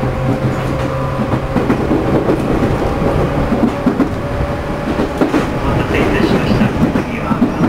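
Running sound inside a JR East 211 series motor car with externally fanned traction motors. A steady motor hum fades out about a second and a half in, leaving rumbling wheel-on-rail noise with scattered clicks.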